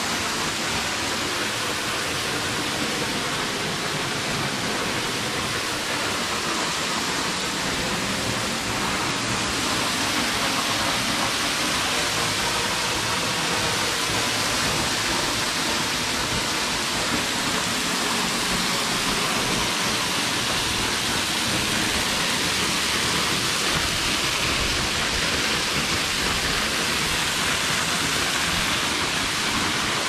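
Waterfall pouring over a rock bluff: a steady rushing hiss of falling water, growing a little louder about ten seconds in.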